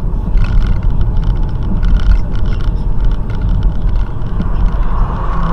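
Steady low rumble of a moving car's engine and tyres, picked up inside the cabin by a dashcam while driving.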